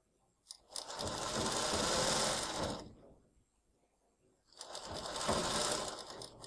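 Sewing machine stitching a zip into dress fabric, running in two bursts of about two seconds each with a short pause between.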